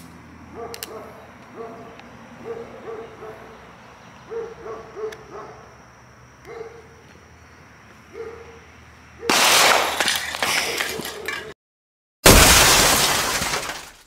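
A dog barks every second or so. Then a gunshot bursts aerosol spray paint cans: a loud blast that trails off over about two seconds, cut short, and after a moment of silence the burst is heard again.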